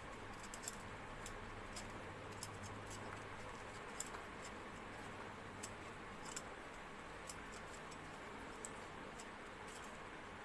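Faint scraping clicks of a metal Y-peeler taking strips of skin off a green ambarella (amra), coming at uneven intervals over a steady low hum.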